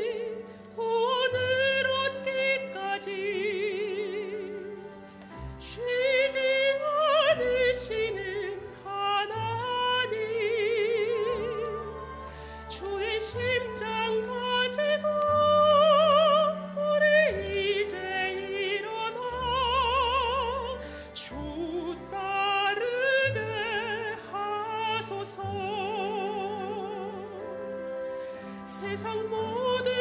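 A woman sings a sacred solo in a classical, operatic style, with wide vibrato on her held notes. A Steinway grand piano accompanies her.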